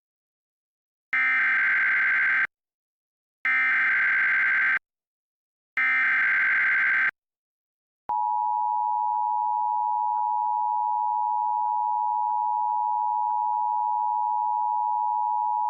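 Emergency Alert System activation: three identical bursts of warbling digital data, each about a second and a half, the SAME header that encodes the alert. About eight seconds in comes the steady two-tone EAS attention signal (853 and 960 Hz together), which marks the start of the alert.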